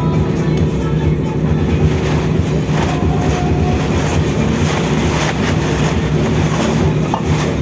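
A steady, loud low drone of machinery running, with a constant hum.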